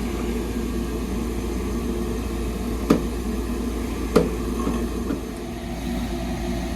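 Steady mechanical hum with two sharp clicks, about three seconds in and again just over a second later.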